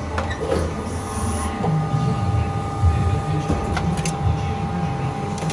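Edwards Pearson press brake running: a steady low hum with a faint steady whine above it. A few light metallic clicks come about four seconds in, as a sheet-metal blank is set against the tooling and back gauge.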